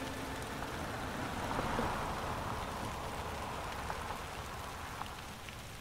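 A car driving past on a wet road: a steady hiss of tyres on wet asphalt that swells about two seconds in and then slowly fades.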